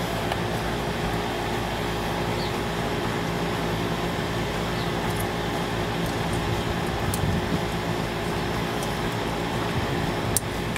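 Steady mechanical hum of a fan-like machine running, with a few faint ticks and one sharp click near the end.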